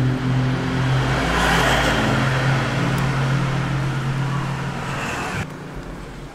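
A motor vehicle's engine running with a steady low hum and road noise, swelling briefly about two seconds in. It cuts off suddenly near the end.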